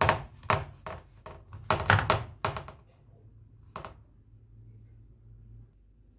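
Dull thuds and taps of hands pressing and patting semolina dough into an aluminium baking tray, about seven in the first four seconds, then quiet but for a faint low hum.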